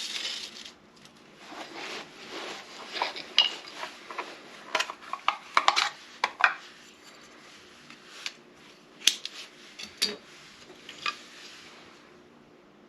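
Sticks of a hand-drill fire kit, sotol hearth board and seepwillow spindle, being handled: irregular sharp clicks, taps and short scraping rubs of wood on wood that thin out and die away near the end.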